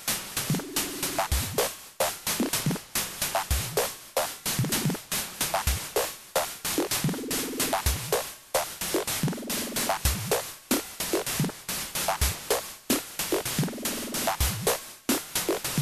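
Electronic music: a fast, steady drum-machine beat with a short synth chord that comes back about every two seconds.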